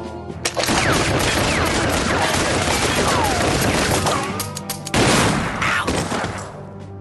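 A long, rapid volley of gunshots with ricochet whines, then a short pause and one final loudest blast about five seconds in that dies away.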